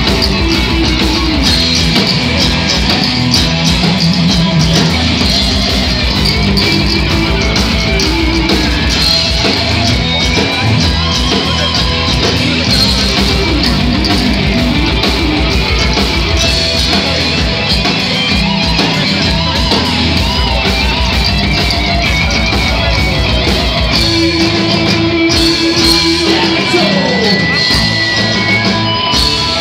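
A live heavy metal band playing loud and without a break: distorted electric guitars, bass and drums.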